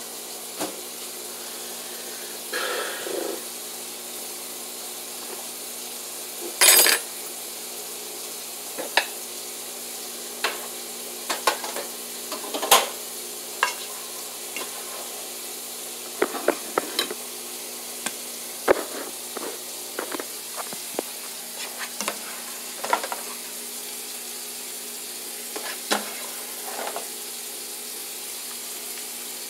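Fork clinking and scraping on a plate during eating: scattered sharp clicks at irregular times, a cluster around the middle, over a steady background hiss.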